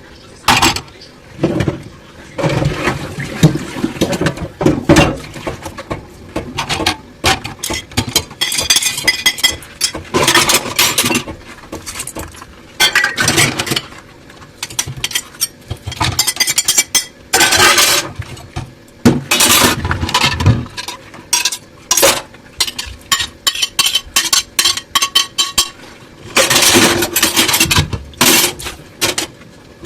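Dishes being washed by hand: crockery and cutlery clink and knock against each other many times, between short spells of hissing washing noise.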